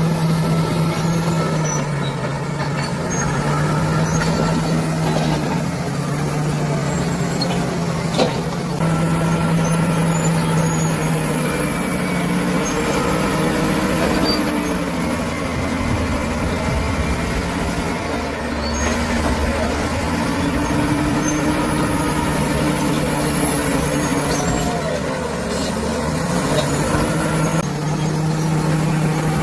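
Bulldozer's diesel engine running steadily under working load, its pitch rising and falling as the load changes, with a single sharp knock about eight seconds in.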